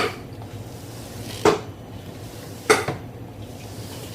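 Three sharp metallic clicks from a Yamaha FJR1300's front end as the handlebars are turned, about a second and a half apart: the semi-floating front brake rotors shifting on their carriers, a normal noise and no sign of a fault.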